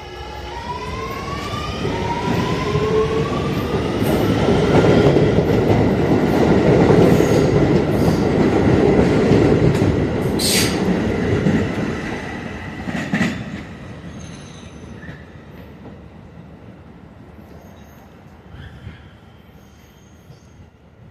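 Staten Island Railway electric train heard from inside the car, pulling away from a station. The traction motors give a whine that rises in pitch over the first few seconds as the train accelerates. A loud rumble of wheels on the rails builds up, with a brief sharp sound about ten seconds in and a knock about three seconds later. The noise then fades steadily as the train eases off.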